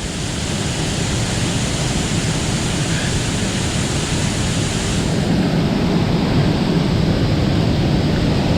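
Waterfall, a steady loud rush of falling water. About five seconds in, the hiss loses its highest part and the low rumble grows a little.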